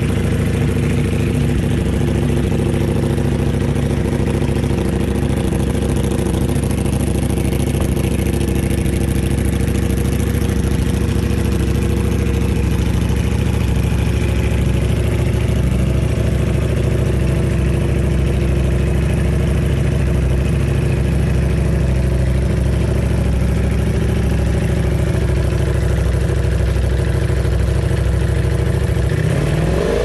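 Ducati Panigale V4's V4 engine idling steadily through an FM Project aftermarket exhaust.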